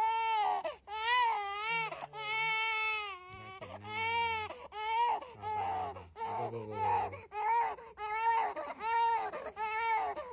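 A young baby crying hard: a run of wails, each about a second long with a short breath between, one longer wail a couple of seconds in.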